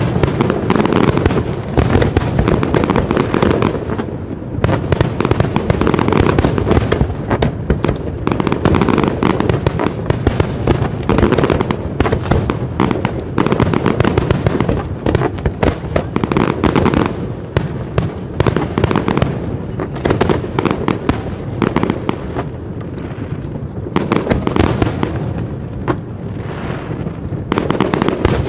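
Fireworks display: a dense, continuous barrage of bursts and crackling, one bang hard on the heels of the next.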